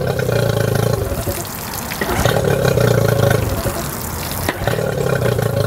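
2010 Yamaha 9.9 hp two-stroke outboard running on a garden-hose water supply, its note swelling a little about two seconds in and again near the end, with cooling water pouring from the lower unit and splashing onto the pavement.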